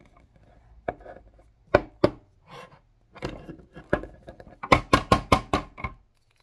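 Hard plastic toy figures clacking against each other and the tabletop as they are handled: scattered sharp clicks, then a quick run of about seven clacks about five seconds in.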